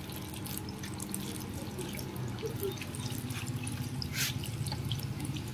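Hand-cranked stainless-steel spiral potato cutter being turned, its blade cutting into a skewered potato with scattered small clicks and scrapes, one a little louder about four seconds in. A steady low hum runs underneath.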